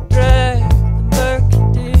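Folk rock song: a sung vocal line over steady bass, with drum hits at the start and near the end.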